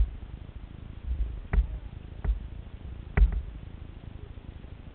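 Four sharp knocks of paddles bumping the hollow plastic hull of a sit-on-top kayak, the loudest near the end, over a low steady rumble.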